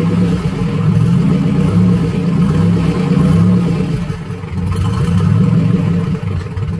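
Freshly rebuilt turbocharged GM 3400 (LA1) V6 running just after its first start, its note rising and falling, with an unsteady idle that is not yet tuned for the new stage 2 turbo cam. The sound cuts off suddenly at the end.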